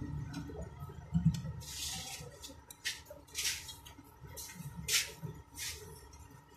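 Handheld hot cutter trimming the excess fabric around an embroidered patch: about five short hissing bursts, each under half a second, with a soft knock about a second in.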